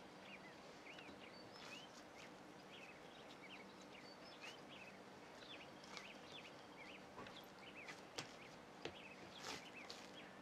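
Near silence: faint, repeated chirping of small birds over a low steady hum, with a few soft taps and rustles as yeast dough is torn into pieces by hand.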